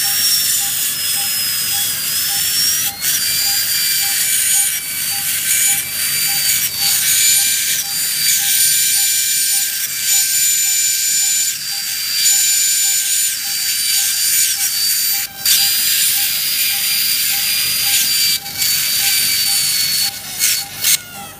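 High-speed surgical bone drill whining steadily as it cuts through the skull, its pitch shifting slightly under load. It pauses briefly a couple of times and stops near the end. A faint, regular beep repeats underneath.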